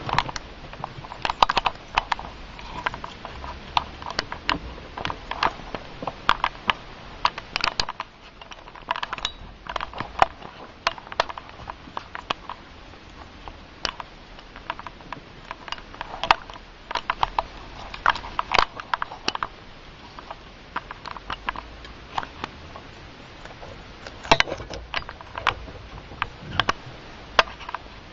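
Guinea pigs eating chopped vegetables from a bowl: irregular crisp crunching clicks that come in clusters with short pauses.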